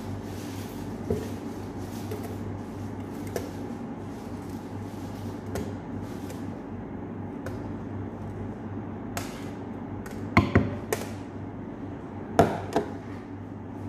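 Metal spoon knocking and tapping against a glass blender jug as fruit pulp is spooned in, a few light knocks spread out and then a cluster of loud sharp knocks after about ten seconds and again near the end. A steady low hum runs underneath.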